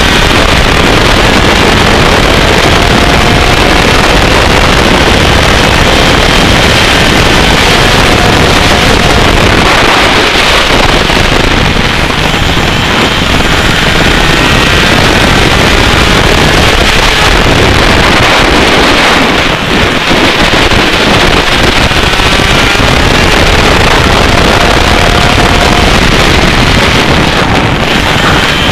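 A 125cc two-stroke kart engine running hard on track, its pitch rising and falling as the kart accelerates and slows, with wind buffeting the microphone.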